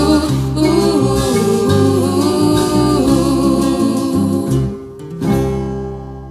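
Closing bars of a French chanson: a woman singing over instrumental backing, then a final chord struck about five seconds in that rings on and fades away.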